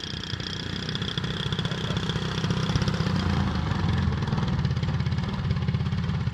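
Engine of a large-scale RC aerobatic model plane idling as the plane taxies up close, its low, even pulse growing steadily louder as it nears.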